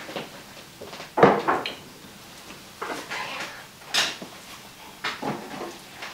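Four kitchen knocks and clatters of things being handled, such as a drawer or cupboard and dishes. The loudest is about a second in.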